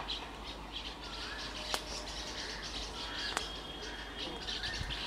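Birds chirping over and over in short high calls, with two sharp clicks, one about a third of the way in and one past the middle.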